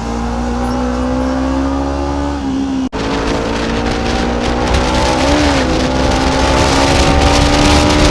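Kawasaki Ninja 300's parallel-twin engine running under way at a fairly steady pitch. The pitch eases down at first, cuts out for an instant near three seconds, rises and dips briefly a little past halfway, then climbs slowly.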